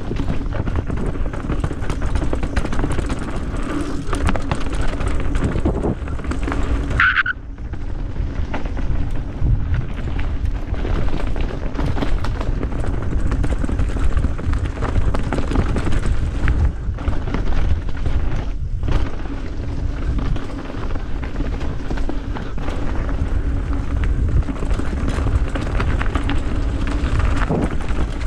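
A vehicle's engine running steadily under a heavy low rumble, with a short high-pitched squeak about seven seconds in.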